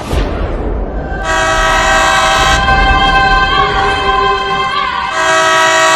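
Indian Railways locomotive horn sounding in long blasts over the low rumble of a train. The horn comes in about a second in and changes note partway through, and a louder blast comes near the end.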